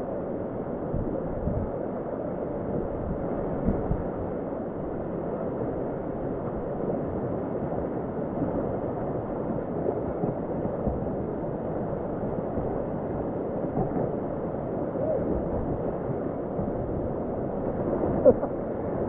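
Steady, muffled rush of whitewater on a river, with a brief louder sound near the end.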